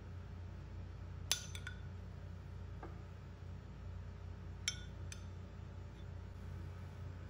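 Metal spoon clinking against dishes while biryani gravy is ladled onto rice: two pairs of sharp clinks about three seconds apart, over a low steady hum.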